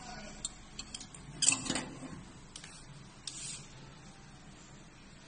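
Light metal clicks and clinks as a steel hook weight is hung on the hook of a stainless steel test plate, with the loudest rattle about a second and a half in.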